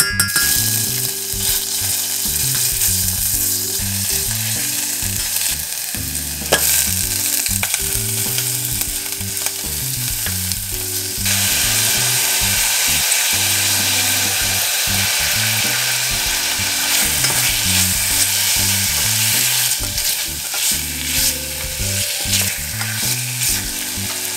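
Minced garlic and pork belly sizzling in hot oil in a stainless steel pot, stirred with a wooden spoon, with a single sharp knock about six seconds in. The sizzle grows louder about eleven seconds in.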